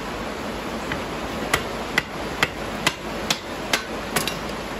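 Hammer blows on a log of firewood set in a cast-iron kindling splitter, about two sharp strikes a second starting about a second in, driving the wood down onto the blade to split it. Steady hiss of heavy rain underneath.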